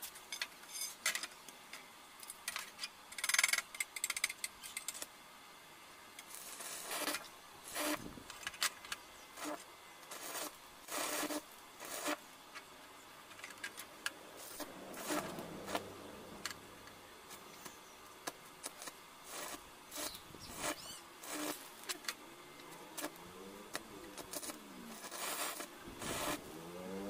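Irregular clinks, taps and scraping from small metal parts being handled and worked by hand, spread unevenly across the stretch. Near the end a pitched call rises and falls a few times.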